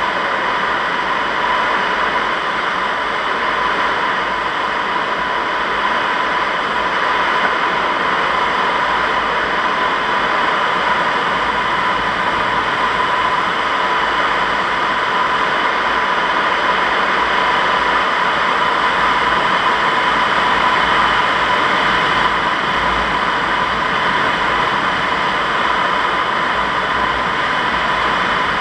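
Steady rush of air streaming over a Zugvogel 3a glider's canopy in flight, heard from inside the cockpit, with a steady high tone running through it.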